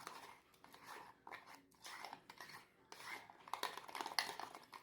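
A utensil stirring thick peanut butter, egg and sugar batter in a cup, with irregular clinks and scrapes against the cup's sides that come thicker near the end.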